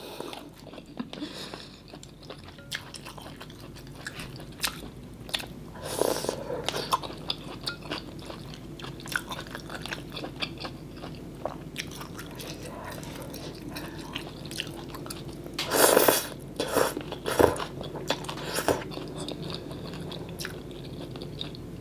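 Close-miked chewing and mouth sounds of a person eating mì Quảng noodles, with scattered small clicks from chopsticks and a wooden spoon in a glass bowl. There are louder eating noises about six seconds in and again about sixteen seconds in.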